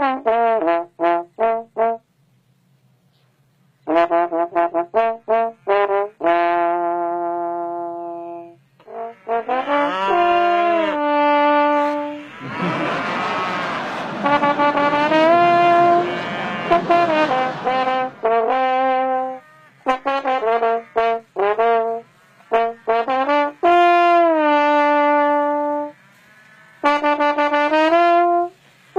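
Trombone playing a tune of quick short notes alternating with longer held notes, with brief pauses between phrases. About halfway through, a stretch of rough noise sounds under the notes for several seconds.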